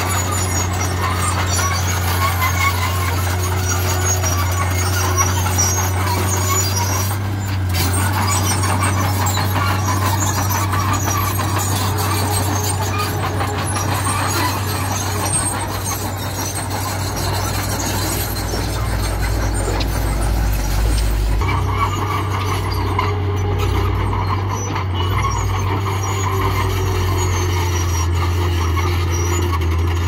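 Small crawler bulldozer's diesel engine running steadily under load as it pushes rock and gravel fill, with the clatter and squeal of its steel tracks.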